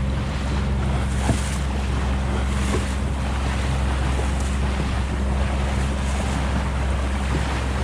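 Boat motor running steadily underway, a constant low hum, with water rushing past the hull and wind on the microphone.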